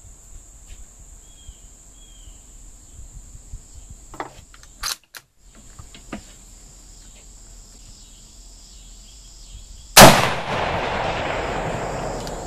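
A Chinese Type 53 bolt-action carbine in 7.62x54R fires one very loud shot about ten seconds in, followed by a long rolling echo. Before the shot there are a few sharp metallic clicks as the sticky bolt is worked. Crickets chirr steadily in the background.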